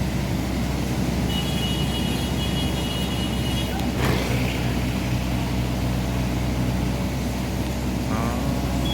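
Excavator's diesel engine running steadily, with a short metallic knock about four seconds in.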